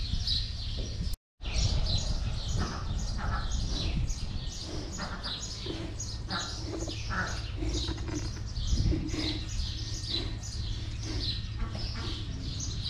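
Many small birds chirping rapidly and continuously, over a steady low rumble. The sound drops out completely for a moment about a second in.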